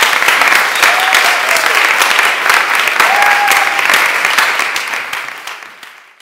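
Audience applauding at the close of a live song, dense clapping that fades away over the last couple of seconds.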